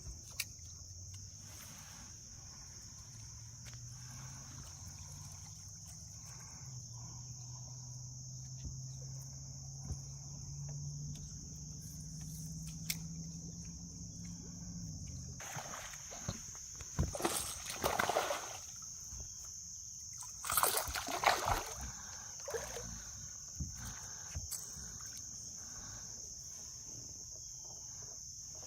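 Insects chirring steadily in a high, even band, under a low hum that rises slowly in pitch and stops about halfway through. After it stops, water sloshes and splashes against the boat in two short bouts a few seconds apart.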